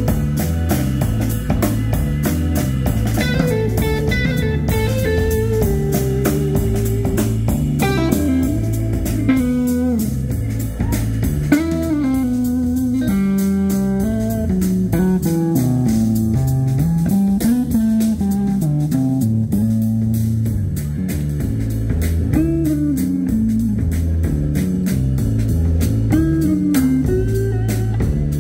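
Live rock band playing an instrumental passage: electric guitar through Marshall amps takes a lead solo full of bent, sliding notes over a drum kit and a moving bass line from the organ.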